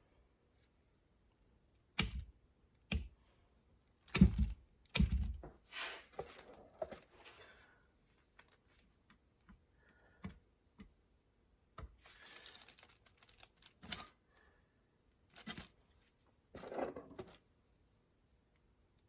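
Scattered clicks, taps and knocks with short stretches of rustling and scraping as tools and filler materials are handled at a workbench, the loudest knocks coming about four to five seconds in.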